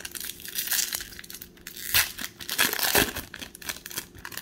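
Foil wrapper of a Pokémon trading-card booster pack crinkling and tearing as it is handled, with louder rips about two and three seconds in.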